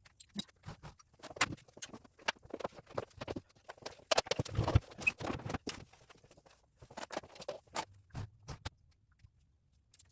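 Irregular light clicks and taps from hand work at a table, handling small objects, denser about four to five seconds in and stopping about nine seconds in.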